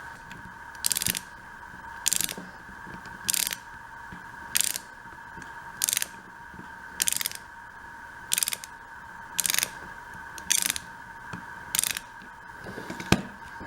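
A small hand tool working on the plastic case of a Flip video camera in a steady rhythm: eleven short, hissy strokes, about one every 1.2 seconds.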